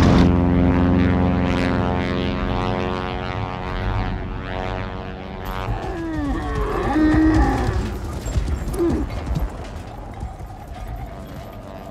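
A propeller plane's engine drones steadily for about the first five seconds and then fades. Then camels bellow and groan in rising and falling calls for a few seconds, from about six to nine seconds in.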